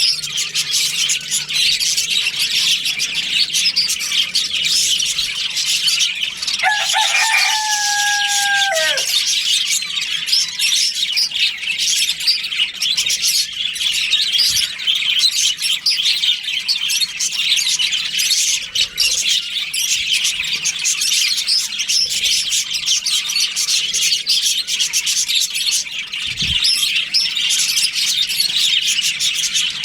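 A colony of budgerigars chirping and chattering continuously. About seven seconds in, one longer, lower call with a held pitch lasts about two seconds.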